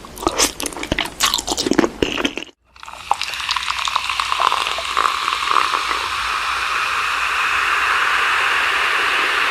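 Close-up crunchy chewing of seaweed for about two and a half seconds, then a sudden cut and a steady hiss that swells and holds.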